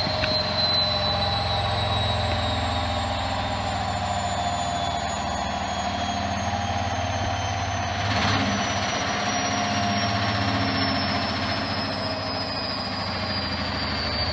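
Hoover Thermo washing machine spinning on its 1600 rpm cycle: a steady drum rumble with high whines that slide slowly down in pitch.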